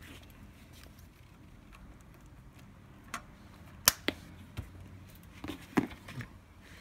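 A few scattered sharp clicks and light knocks, the loudest just before four seconds in: hands handling the wire bundle and tools against the cup sealer's metal housing.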